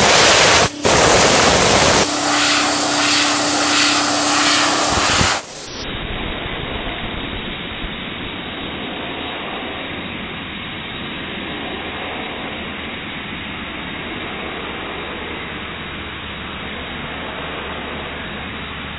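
Compressed air rushing from an air-compressor blow gun: a loud, steady hiss that breaks off for an instant about a second in. After about five seconds it carries on as a quieter, duller hiss as the jet keeps a golf ball floating.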